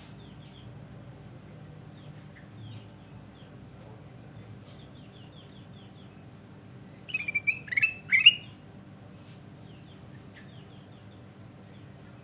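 Kutilang emas bulbul singing one loud, short phrase of quick warbled whistles about seven seconds in, with faint rapid chirps from other birds around it.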